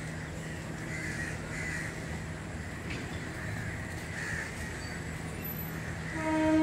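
Crows cawing a few times over a steady low hum. Near the end a train horn starts, one loud steady tone.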